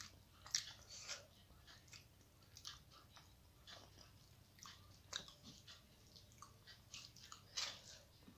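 Faint, scattered wet clicks and smacks of eating rice by hand: fingers mixing rice and curry on a steel plate, and chewing.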